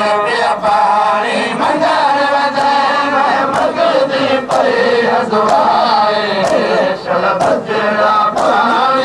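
A group of men chanting a Shia mourning lament (nauha) in unison. Sharp slaps land about once a second in time with the chant: the hand strikes of chest-beating matam.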